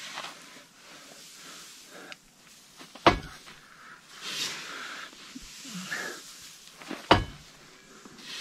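Shovel working a heap of loose chopped straw: soft rustling swishes as the straw is scooped and thrown, and two sharp knocks of the shovel about four seconds apart.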